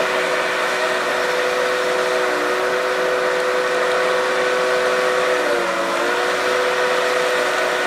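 Tigercat LH855D harvester's diesel engine and hydraulics running steadily with a tonal whine. The pitch dips briefly about five and a half seconds in, then recovers.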